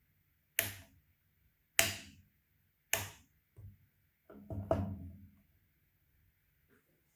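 Sharp knocks of hard objects: three about a second apart, then a quicker cluster of knocks and rattles that ring briefly.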